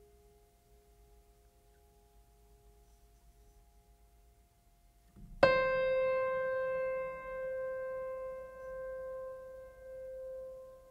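Background music: faint held tones, then about halfway through a single struck note, piano- or bell-like, that rings out and slowly fades, wavering in loudness.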